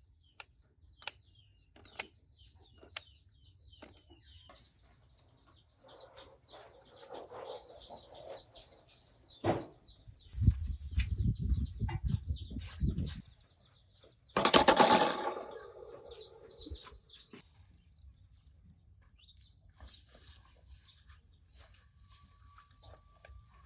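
Small birds chirping in a quick repeated series. A few sharp clicks come in the first seconds, a low rumble follows, and a loud short rush of noise comes about two-thirds of the way through.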